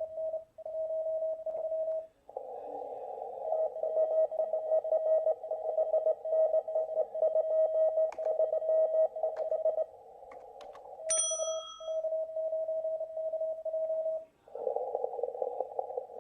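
Morse code (CW) keyed as a single steady tone of about 650 Hz, from a contest station's transceiver heard through a laptop speaker. For long stretches it comes with receiver hiss held to a narrow filter band around the tone. A short high ping sounds about eleven seconds in.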